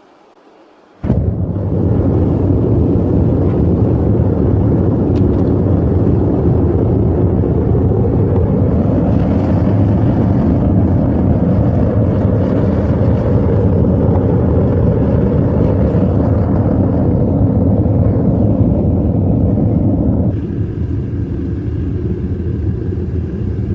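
Propane burner of a homemade metal-melting furnace running with a loud, steady rushing noise that starts abruptly about a second in; a few seconds before the end it turns duller.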